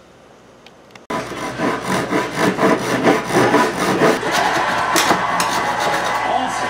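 Handsaw cutting through a pine board with quick back-and-forth strokes, starting suddenly about a second in.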